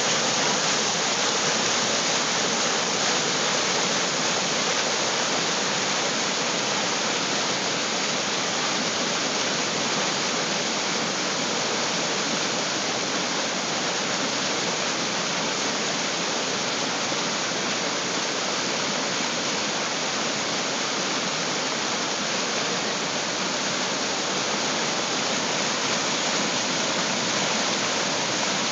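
Flash-flood rapids of churning brown water rushing past close to the microphone, a steady, unbroken rushing noise.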